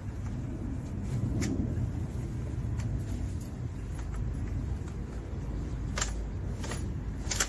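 A collapsible fabric-and-coil hay feeder being pushed down into its collapsed stack, giving a few faint clicks and rustles over a steady low rumble.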